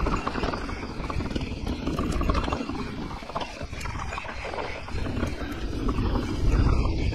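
Santa Cruz Nomad mountain bike rolling down a rough, stony trail: tyres crunching over stones and the bike rattling in quick irregular clicks, under a heavy rumble of wind on the camera microphone.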